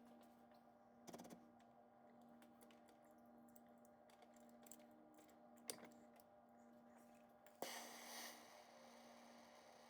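Near silence: faint room tone with a steady low hum, a few light clicks, and a short hiss that starts suddenly about three quarters of the way in.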